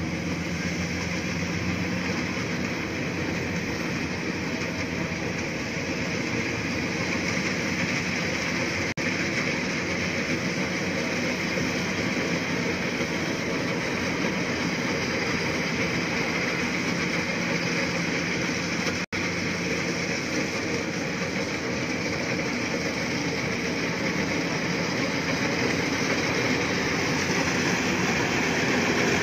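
Iseki HC80 rice combine harvester running steadily as it cuts rice, a continuous engine and machinery drone that grows louder near the end as the machine comes closer.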